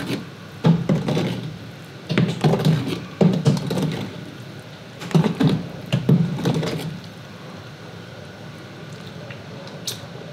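Metal ladle stirring thick tomato soup in a large enamelware stockpot: dull knocks and scrapes against the pot come in three bunches over the first seven seconds, then only a faint steady background.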